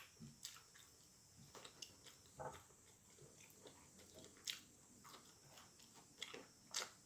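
A person chewing food close to the microphone: faint, irregular wet mouth clicks and smacks.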